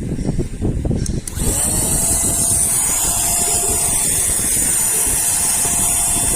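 Cordless handheld vacuum cleaner running: after a second or so of low rattling, the motor spins up about a second and a half in to a steady high whine over rushing air.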